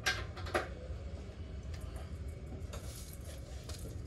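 Light metallic clinks of hand tools and motorcycle parts being handled, two sharper clinks within the first second and fainter scattered taps after, over a low steady hum.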